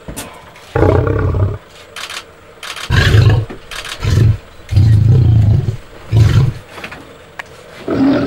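Lion roaring and growling in a series of about five short, deep, loud bursts with brief pauses between them.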